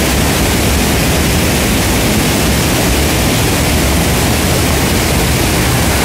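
Waterfall whitewater rushing over rocks: a loud, steady, even noise.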